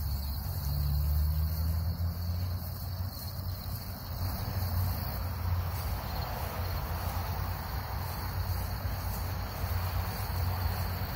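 Steady high-pitched insect chorus from the grass field, over a constant low rumble.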